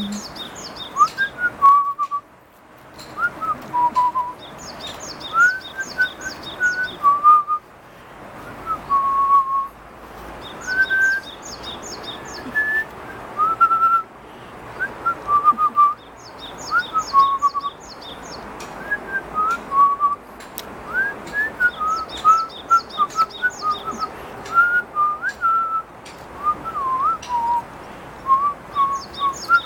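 A person whistling a long run of short, chirping notes that slide up and down, to call a dog. Behind it a bird gives a quick burst of high notes about every five or six seconds.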